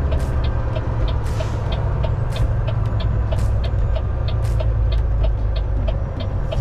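Semi truck cab interior while driving in the rain: steady low engine and road rumble, with the turn signal ticking about three times a second and the windshield wipers swishing about once a second.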